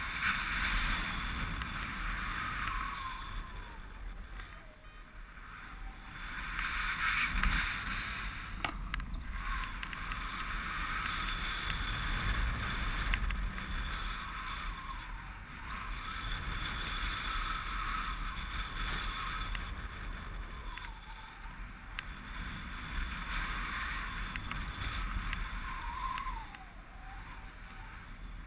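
Airflow rushing over the camera microphone of a paraglider in flight, swelling and easing in gusts.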